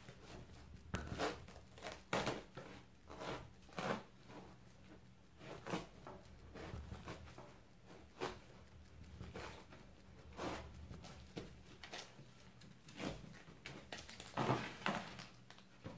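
A knife cutting and tearing through jackfruit flesh to separate it from the core, in many short, irregular strokes about one or two a second.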